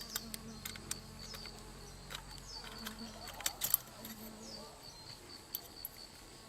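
Insects chirping, a high note repeated several times a second, with scattered sharp clicks over it.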